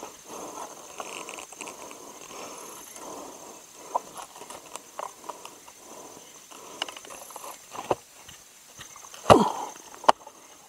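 String being pulled and wound around the rough bark of a split log, an irregular rustling and scraping with small clicks. About nine seconds in, a heavy thud as the bound log is set upright on the ground, followed by a couple of sharp knocks.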